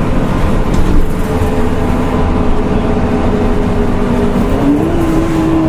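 Nissan Diesel CNG city bus under way, its engine running with a steady low rumble and a humming tone that steps up slightly in pitch about four and a half seconds in.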